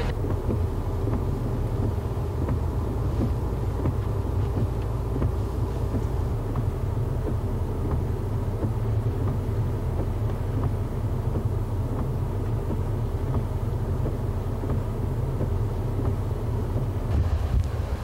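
Steady low rumble of typhoon wind buffeting the microphone, mixed with the rush of floodwater. The rumble eases a little about a third of the way in and grows again near the end.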